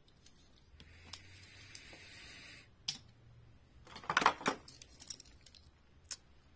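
Diecast toy cars and a clear plastic packaging tray being handled. A soft rustle and a single click come first, then a short burst of plastic clattering about four seconds in as a car is picked out of the tray, and one more click near the end.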